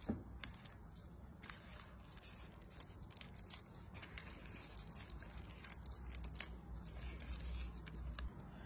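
Faint, irregular sticky clicks and scrapes of a silicone spatula stirring wet dough in a glass bowl.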